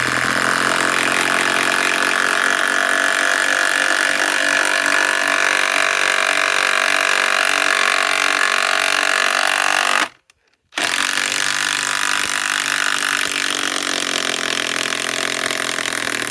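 DeWalt DCF891 mid-torque cordless impact wrench hammering steadily under load as it drives a long lag screw into wood. It stops briefly about ten seconds in, then starts hammering again.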